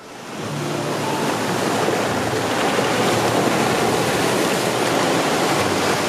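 Ocean surf breaking on a beach: a steady rushing wash of waves that builds up over the first couple of seconds, then holds.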